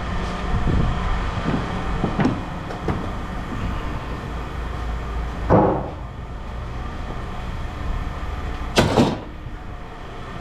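Scrap car parts being handled: a few light knocks, then two louder clunks, one about halfway and one near the end, over a steady low engine rumble.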